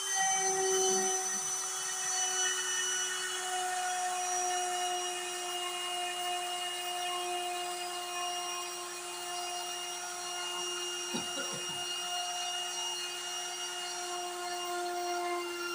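The electric router spindle of a DIY CNC machine runs at high speed with a steady, high whine, its bit cutting a groove into a glossy panel.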